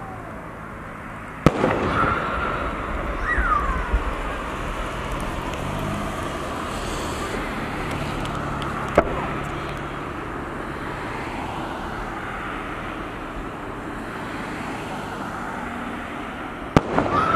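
Aerial firework shells bursting high overhead: three sharp booms, about a second and a half in, about halfway through, and just before the end, each trailing off in an echoing rumble over steady outdoor background noise.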